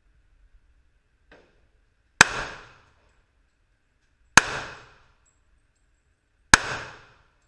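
Three gunshots fired at a steady pace about two seconds apart, each a sharp crack that dies away within half a second. A faint click comes shortly before the first shot.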